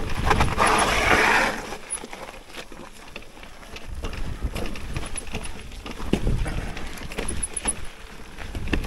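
Mountain bike riding over a loose, sandy trail: tyres on the ground and irregular knocks and rattles from the bike over bumps, with a loud rush of noise in the first second and a half.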